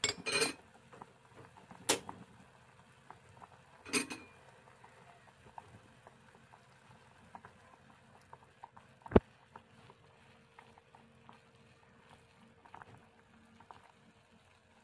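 A metal spoon clinks and knocks against a pot of simmering milkfish stew a few times while scooping, the sharpest knock about nine seconds in. Faint bubbling and small ticks from the broth sound between the knocks.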